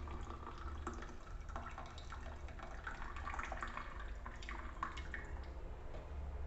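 Hot herbal tea being poured into a glass, with irregular trickling, splashing and dripping that is busiest in the middle and thins out toward the end.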